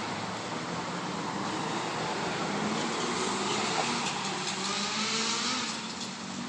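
Steady car noise with a faint engine hum, swelling slightly in the middle and easing off near the end.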